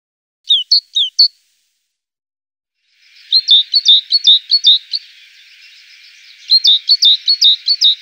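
Hawfinches calling: a quick run of four sharp, falling chirps, then two bursts of rapid high chirping over a soft hiss, the second near the end.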